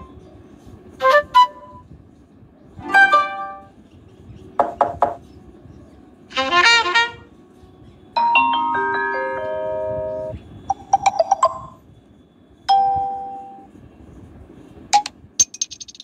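Stock Samsung Galaxy Tab A (2017) notification tones played one after another: about eight short chimes and jingles, each a second or less, spaced a second or two apart, with one near the middle ringing on for about two seconds.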